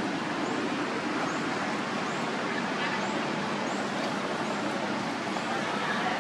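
Steady background noise like distant road traffic, with faint short high chirps repeating about every three-quarters of a second.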